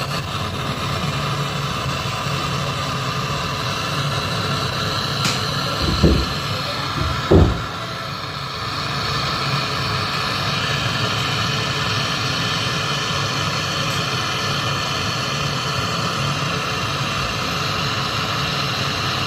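Steady mechanical hum under an even hiss, with two short low thumps about six and seven and a half seconds in.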